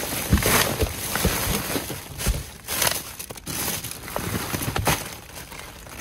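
Plastic bin bag and bagged-salad packaging crinkling and rustling in irregular bursts as gloved hands rummage through them.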